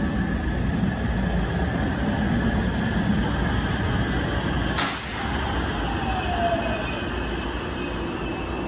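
JR West electric train running into the station platform: a steady rumble of wheels on rail, a sharp click about halfway, then a whine falling in pitch as it slows.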